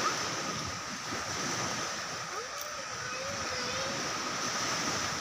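Sea waves washing on a rocky shore, a steady wash of noise, with a steady high-pitched drone over it.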